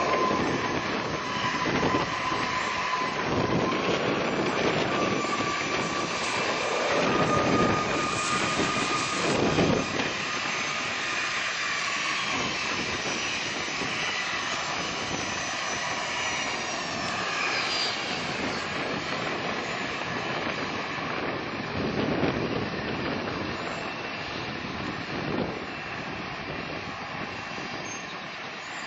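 Jet airliner's engines passing close by: a loud whine with several high tones over a rumbling roar. The high tones slide downward about halfway through, and the sound fades slowly toward the end.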